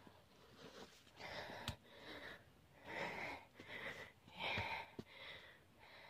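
Hiker breathing hard on a steep uphill climb: a series of heavy, irregular breaths in and out, about one a second, with a few sharp knocks between them.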